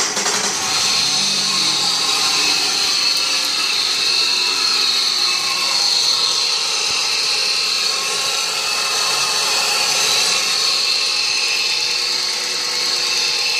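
Subaru EZ30 flat-six engine running with a steady, high-pitched buzzing whine from the belt-driven accessories, which the owner puts down to a worn alternator bearing.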